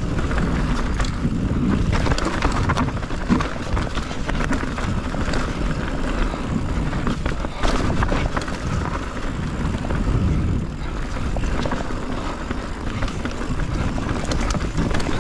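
Mountain bike descending a rough dirt trail: a steady low rush of wind and tyre noise, broken by frequent sharp knocks and rattles as the bike runs over rocks and roots.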